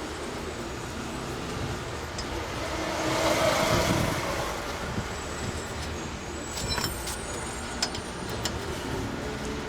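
Road vehicle noise that swells and fades about three to four seconds in, like a car passing, with a few light clicks later on.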